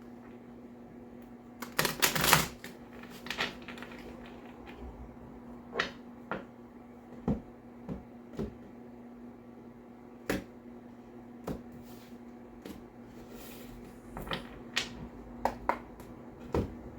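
A deck of tarot cards being shuffled and handled: a quick run of card snaps about two seconds in, then scattered single flicks and taps of the cards every second or so.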